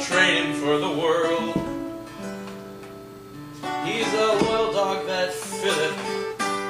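Two acoustic guitars playing together, chords strummed and left to ring. The guitars go quieter in the middle and pick up again about four seconds in.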